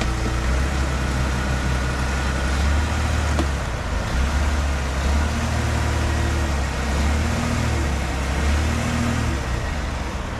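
Ford F-150's 2.7 L twin-turbo EcoBoost V6 running at low speed under light throttle as the truck is backed up onto ramps, a low drone that swells and eases several times.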